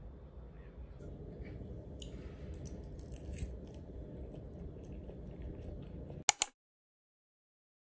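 Quiet eating sounds: chewing, with a metal fork tapping and scraping in a ceramic bowl over a low steady room hum. About six seconds in, two sharp clicks of the fork, then the sound cuts to silence.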